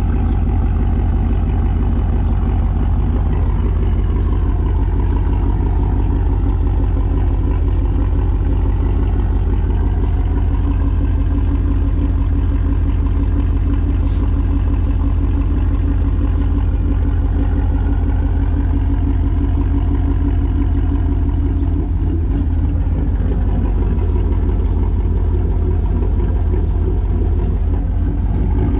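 2013 Chevrolet Silverado's V8 with a Stage 2 BTR camshaft and cat-deleted exhaust, idling steadily through the exhaust with the cam's little chop.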